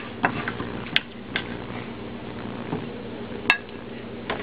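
Wooden serving utensils clicking and knocking against a wok and plate as stir-fried vegetables are served, a handful of short sharp clicks over a steady low hum, the loudest about three and a half seconds in.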